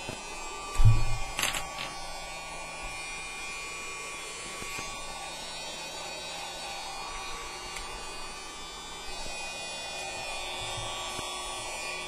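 Mini USB desk vacuum cleaner's small electric motor running with a steady whine. A loud knock from handling the unit comes about a second in, followed by a sharp click.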